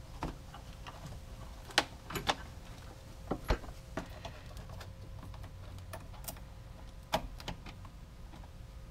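Irregular light clicks and knocks of the rubber intake snorkel and plastic air-box parts being pushed and handled into place, over a faint steady hum.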